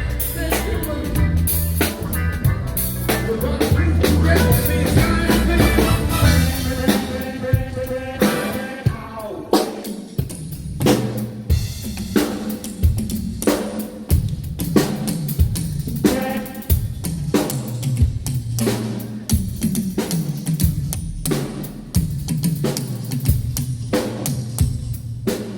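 A live band playing at a sound check, the drum kit prominent. About nine seconds in, the fuller sound thins out to mostly a steady drum beat with a low line under it.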